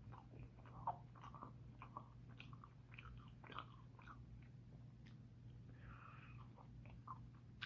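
Faint chewing and biting of homemade chicken wings: scattered soft wet clicks and mouth noises, over a steady low hum.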